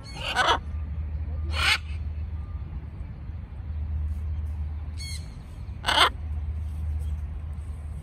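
Blue-and-gold macaws giving short, harsh squawks: four in all, two in the first two seconds and two more about five and six seconds in.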